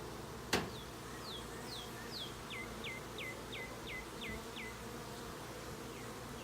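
Honey bees buzzing steadily around an opened, crowded hive. A single sharp click about half a second in, and a string of about ten short falling whistles, coming closer together, from about a second in.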